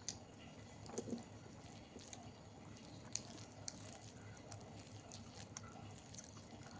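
A person chewing food close to the microphone: faint, wet mouth sounds with small scattered clicks, a few sharper ones about a second in and around three seconds in.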